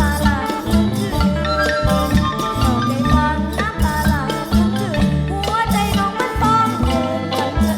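Isan pong lang folk ensemble playing an instrumental passage: melodic lines over a steady drum beat and percussion.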